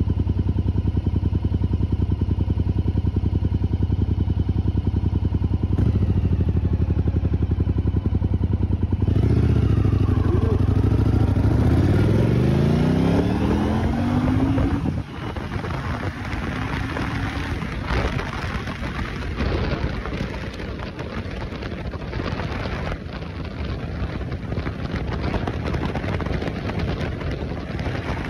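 1981 Yamaha Virago XV750 V-twin running steadily, then about nine seconds in revving up hard as the bike launches, its pitch climbing until a gear change about fifteen seconds in. After that, a rushing noise of wind on the microphone with the engine pulling underneath at road speed.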